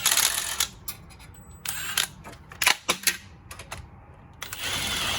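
Impact gun run in two short bursts, about a second in total at the start and again near the end, driving home the bolts of a front wheel hub assembly, with a few clicks and knocks of tool handling in between.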